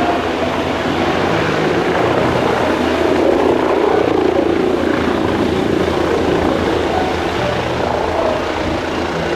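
Helicopter running loud and close, a steady rotor and turbine roar with a fast rotor flutter.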